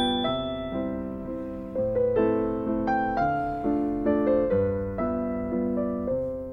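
Solo piano music played through small speakers driven by a Fosi Audio BT30D Pro amplifier: a slow melody of single notes and chords, each ringing and fading.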